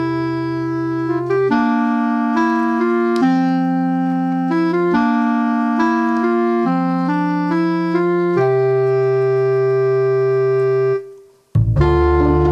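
Instrumental background music of held notes and chords that change every second or two. It cuts out briefly near the end, then starts again.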